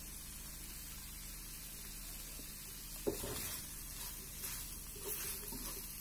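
Carrot sabji sizzling faintly in a metal pan as a steady hiss. About three seconds in, a wooden spoon knocks against the pan and stirs the carrots in a few soft scraping strokes.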